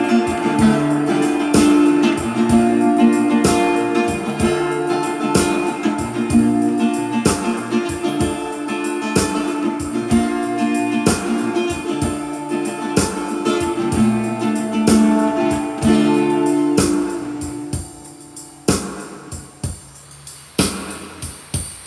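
Instrumental music led by guitar, with notes held over a steady beat; about seventeen seconds in it thins out and fades down to softer, sparser sounds.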